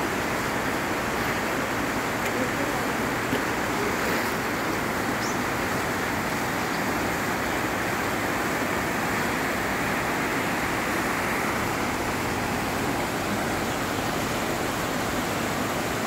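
Steady rushing of flowing water, an even, unchanging noise without any distinct splashes or knocks.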